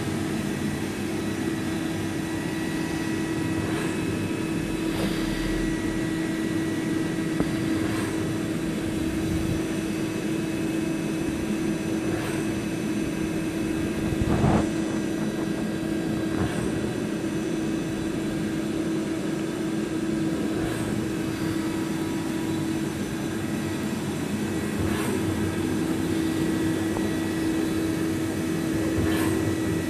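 Okuma Howa CNC lathe running: a steady machine hum with a strong low steady tone and several higher ones, and scattered clicks, the loudest a knock about halfway through.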